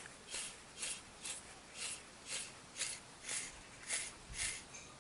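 Faint back-and-forth rubbing strokes, about two a second, each a short hiss, as of something being rubbed or scraped by hand.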